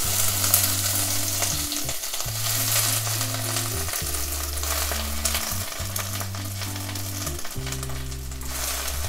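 Moringa (drumstick) leaves sizzling in hot oil with popped mustard seeds as handfuls are dropped into the pan. The sizzle is strongest just after the leaves go in, eases, then flares again briefly near the end.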